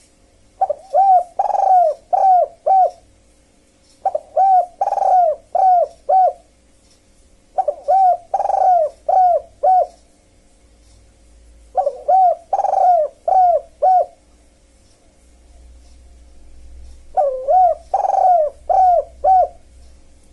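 Dove cooing in five repeated phrases, each a few short coos around one longer, louder coo, every three to four seconds, over a faint steady hum.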